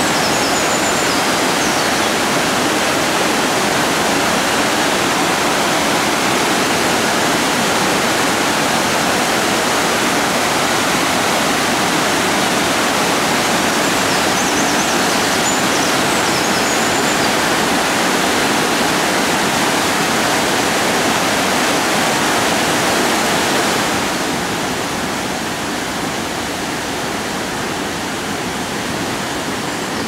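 Waterfall on a mountain stream: a loud, steady rush of falling water, becoming a little quieter and less hissy about 24 seconds in.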